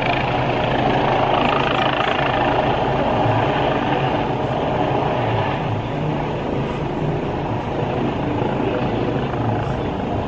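Helicopter N314PH's rotor and turbine engine running steadily with a low hum as it comes in to land, easing slightly about halfway through.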